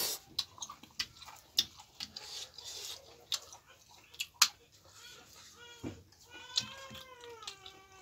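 Close-up chewing with sharp mouth clicks, then a cat meowing in one long, wavering call starting about two-thirds of the way through.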